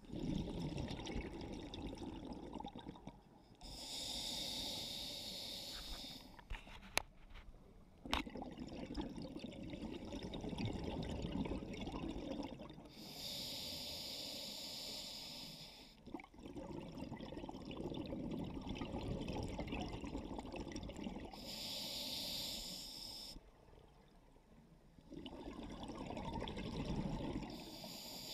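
Scuba diver breathing through a regulator underwater: a hiss on each inhale, then a long bubbling rumble of exhaled air, about three breaths in all. Two sharp clicks about seven and eight seconds in.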